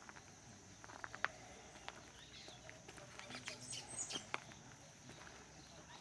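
Faint outdoor garden ambience: scattered light clicks and ticks with a few short bird chirps over a steady faint high hiss.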